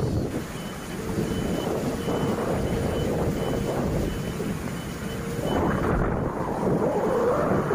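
Heavy rainstorm with wind, a loud steady rush that swells near the end. A faint high electronic beep repeats about every 0.7 s, stopping about five seconds in.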